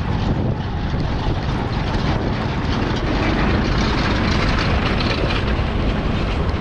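Loud, steady road and wind noise with a low rumble, which swells in the middle as if a vehicle is passing close by.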